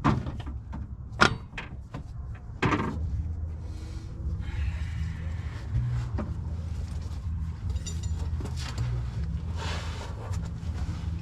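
Three sharp knocks about a second and a half apart, then a steady low hum.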